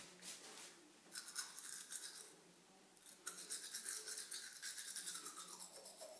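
Manual toothbrush scrubbing teeth with rapid back-and-forth strokes, in two bouts with a short pause about two seconds in.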